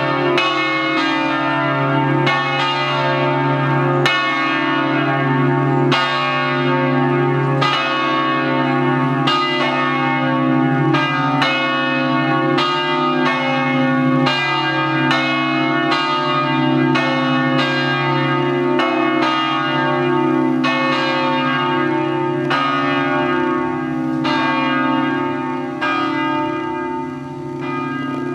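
A peal of several church bells in a bell tower, swung electrically and ringing a solemn signal: strokes follow one another a few times a second, their long ring-outs overlapping into one continuous clangour.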